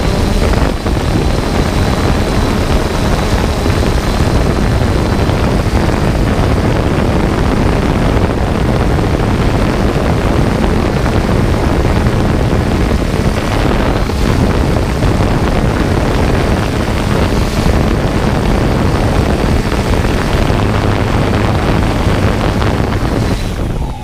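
A drone in flight: a loud, steady rush of wind on the drone's microphone over the whir of its propellers.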